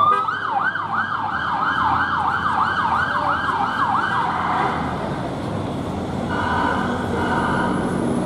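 Police van siren on a fast yelp, rising and falling about three times a second, stopping about four and a half seconds in. About a second and a half later a steady siren tone sounds briefly, over city traffic noise.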